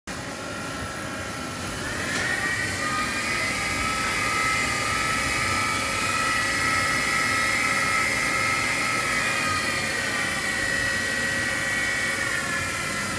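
A 1997 Fadal VMC 15 CNC vertical machining center running under power: a motor whine rises about two seconds in, holds steady, and falls away near the end, over a steady machine hum.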